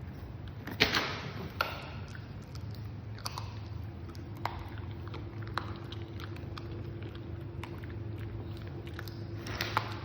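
A beagle chewing a hard, crunchy treat, with sharp crunches at uneven intervals, the loudest about a second in.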